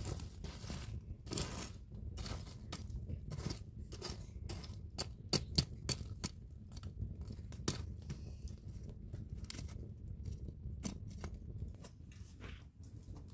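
Irregular scraping and clicking of a metal tool raking through charcoal embers, the coals clinking against each other, over a steady low rumble.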